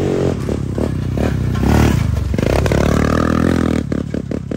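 Dirt bike engine revving hard, its pitch climbing and falling as the throttle is worked, then cutting in and out rapidly near the end.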